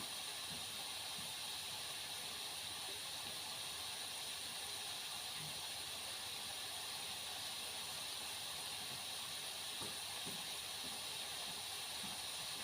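Steady, even hiss throughout, with a few faint light knocks.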